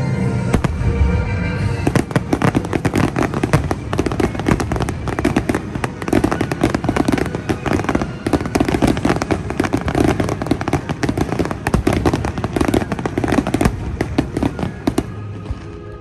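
Aerial fireworks crackling in a dense stream of rapid pops, with music playing underneath. The crackle starts about two seconds in and dies away near the end.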